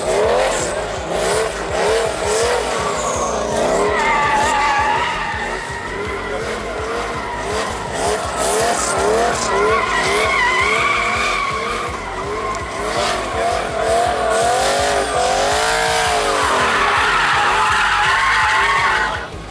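Drift car sliding sideways, its engine revving up and down over and over while the rear tyres squeal and skid. The car grows loudest near the end as it passes close.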